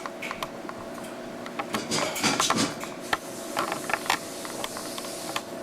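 Irregular clicks, knocks and rattles of small objects being handled, thickest and loudest a couple of seconds in.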